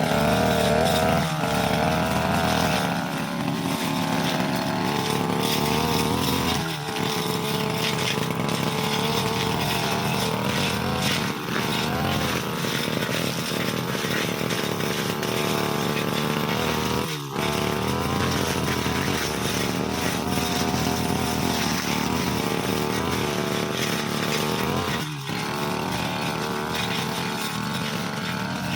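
Brush cutter engine running at high throttle while cutting grass, with a handful of brief dips in revs where the throttle is eased and picked up again.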